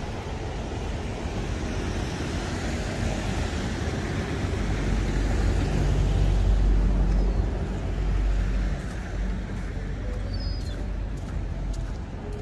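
City street traffic noise with a motor vehicle passing: a low engine rumble swells about five seconds in, peaks, and fades again after about eight seconds.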